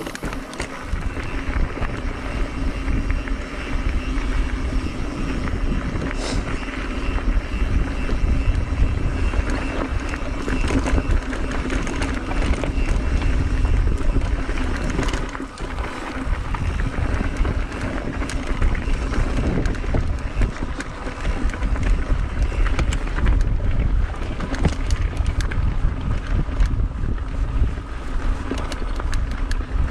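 A mountain bike rolling over rough trail, with the steady rumble and rattle of the tyres and frame and wind rushing over the microphone.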